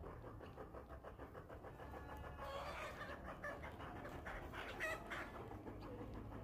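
Faint clucking of fowl, a quick run of short clucks through the middle.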